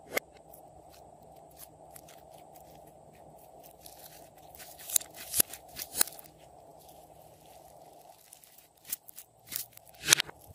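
Glossy slime being squeezed and kneaded by hand, giving sharp sticky clicks and pops. A loud click comes right at the start, and the clicks bunch up around the middle and again near the end.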